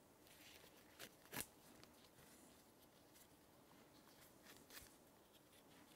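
Faint handling of nylon sling webbing and its buckle: light rustling with a couple of small sharp clicks about a second in and a few softer ones near the end, over near silence.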